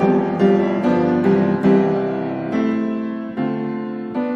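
Background piano music: notes and chords struck at an even, unhurried pace, each ringing out and fading.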